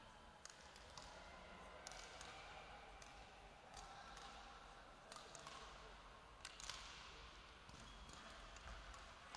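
Faint sounds of a badminton rally in a sports hall: sharp clicks of rackets hitting the shuttlecock, the loudest about six and a half seconds in, with short squeaks of shoes on the court floor.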